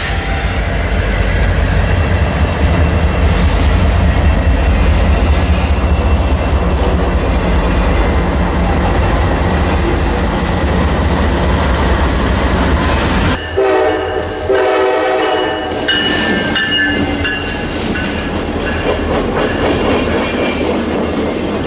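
A train passing with a heavy, steady rumble. About thirteen seconds in, the sound changes abruptly and a train horn sounds a steady chord for a couple of seconds, followed by thin high-pitched tones.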